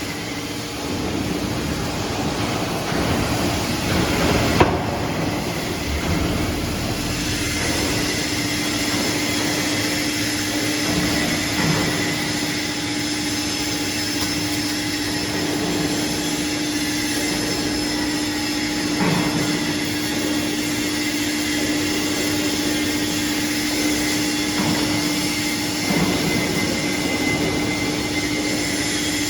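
Hydraulic scrap metal baler running: a steady mechanical hum from its hydraulic power unit under constant machine noise, with a sharp metallic bang about four and a half seconds in and a few fainter knocks later.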